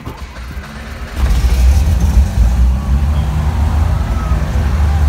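A Cessna light aircraft's piston engine being started on the key: the starter cranks it for about a second, then it catches and settles into a steady, loud run.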